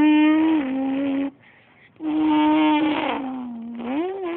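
Mouth-made car engine noises: a held, buzzing vocal drone that cuts off after about a second, then a second drone starting about two seconds in whose pitch sags and then swoops up near the end, like an engine revving.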